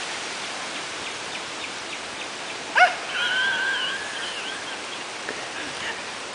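Steady outdoor background hiss with faint scattered chirps; about three seconds in, a distant pitched call starts sharply and is held for nearly two seconds.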